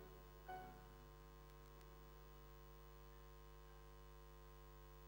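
Near silence: a faint steady electrical hum, with one brief faint sound about half a second in.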